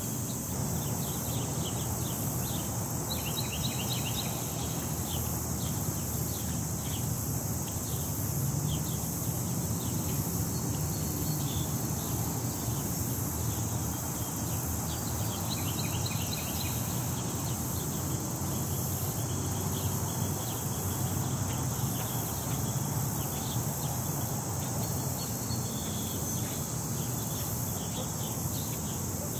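Outdoor ambience: wind rumbling on the microphone under a constant high-pitched hiss, with small birds chirping in short bursts a few seconds in, around the middle and near the end.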